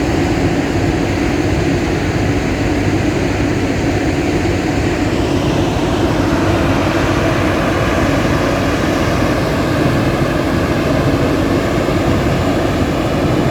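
Atlas Copco Powercrusher PC1375i mobile impact crusher running, its Caterpillar diesel engine and machinery giving a loud, steady drone. A higher whine rises in pitch about five seconds in.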